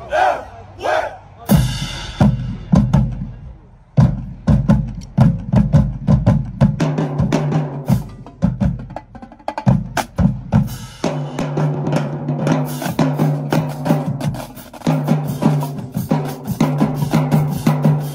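Marching band drumline playing a cadence on snare drums, tenor drums, bass drums and cymbals. It opens with a few shouted calls and a cymbal crash about a second and a half in, pauses briefly near four seconds, then drives on in fast, steady drumming with pitched low drum notes.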